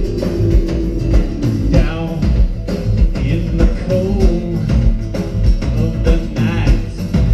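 Rock band playing live through an outdoor stage PA: drum kit keeping a steady beat under bass and acoustic guitar, with a voice singing.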